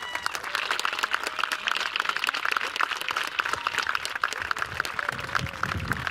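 Ringside spectators applauding, a dense irregular patter of many hands clapping that swells at the start and keeps on.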